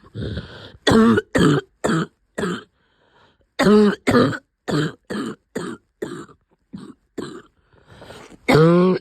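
A woman coughing in fits from pneumonia. The coughs are rapid and hacking, about two a second, with a short break after the first fit and a longer, voiced cough near the end.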